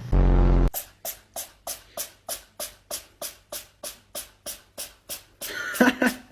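Rhythmic sound-effect track: a short loud buzz, then a steady run of sharp ticks about three a second, each dying away quickly. A brief pitched vocal sound comes about a second before the end.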